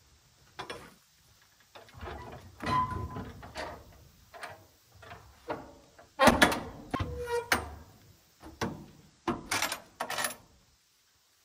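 Steel shipping-container door being shut and latched: a string of metal clanks and scrapes from the door and its locking bars and handle. There is a grating scrape with a ringing note about two seconds in, the loudest clang about six seconds in, and a quick run of knocks near the end.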